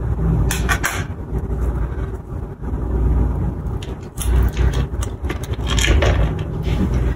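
Foil wrapper of a block of cream cheese crinkling in short bursts as it is peeled off by hand, over a low steady rumble.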